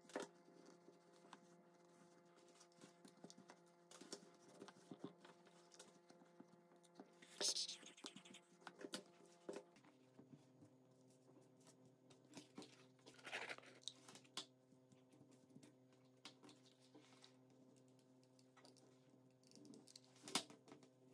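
Near silence with faint rustling of cotton fabric and small taps and clicks as hands handle fabric and cardboard, over a low steady hum. There is a brief louder rustle about a third of the way in and a sharp click near the end.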